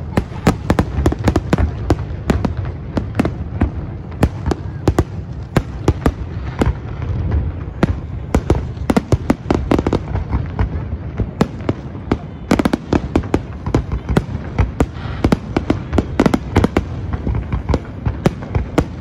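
Fireworks display: aerial shells bursting in a dense, continuous barrage of sharp bangs and pops, many in quick succession, over a steady low rumble.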